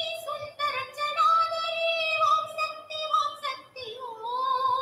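Background music: a Tamil devotional song, a high voice singing long held notes.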